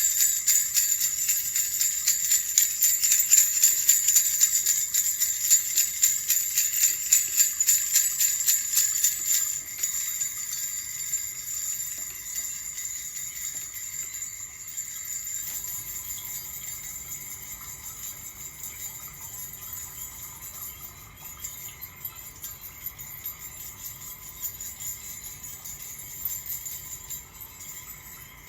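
Small bells shaken in a rapid, even rhythm for about ten seconds, then stopping and left to ring and slowly fade.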